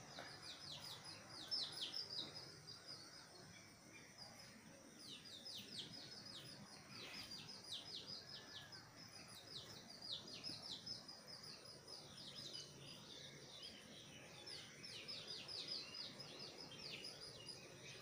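Small birds chirping: rapid series of short, high, down-slurred chirps with brief pauses between series, faint throughout.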